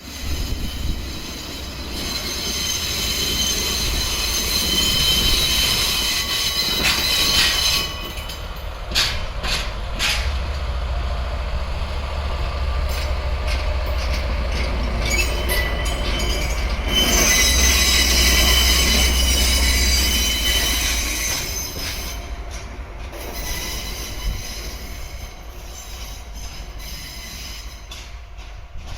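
DE10 diesel-hydraulic locomotive moving slowly with its wheels squealing on the rails, loudest at the start and again about two-thirds of the way through, over the steady low drone of its engine. A few sharp clicks come about nine to ten seconds in.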